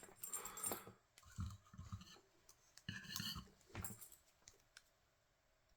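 Faint, scattered clicks and light rattles of small parts and tools being handled on a workbench, a few short bursts a second or so apart.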